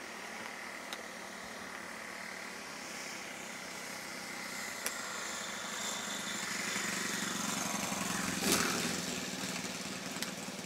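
Small engine of a radio-controlled model Cessna buzzing in flight, growing louder to its closest pass about eight and a half seconds in, then fading a little.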